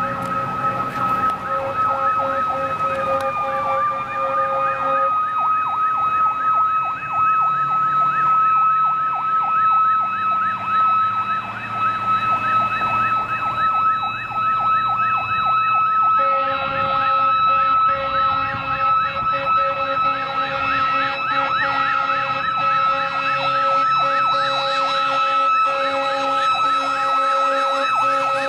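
Sirens of approaching fire trucks: a steady high siren tone over a fast, repeating rise-and-fall yelp. About halfway through, a second, lower steady siren tone joins, and the sound grows fuller as the apparatus comes closer.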